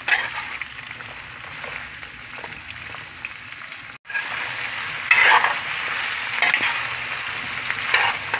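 Jalapeño peppers, onion and carrot sizzling in a clay cazuela, with a spoon stirring and scraping through them in several louder strokes. The sound cuts out for an instant about halfway through.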